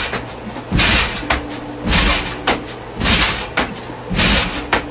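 Repeated loud bangs, about one a second, four in all, over a steady low hum.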